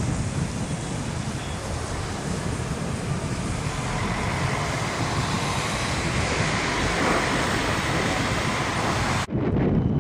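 GVB Combino electric tram pulling away from a stop and rolling off, over steady city traffic noise with a low rumble; the rolling hiss grows louder about halfway through, and the sound cuts off sharply near the end.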